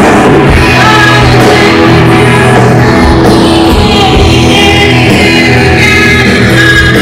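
Rock band playing live and loud: electric guitars, bass guitar and a drum kit.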